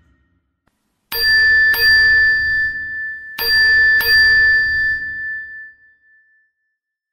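Bell-like chime sound effect: two quick strikes, the pair repeated about two seconds later, each ringing on one bright tone and fading away.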